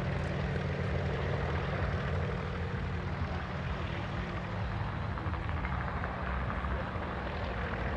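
Kamov Ka-26 helicopter running steadily, its twin radial piston engines and coaxial rotors heard as it hovers low and starts to climb.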